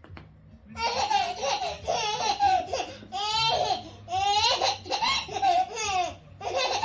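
Baby laughing hard in repeated high-pitched peals, starting about a second in, with short catches of breath between runs.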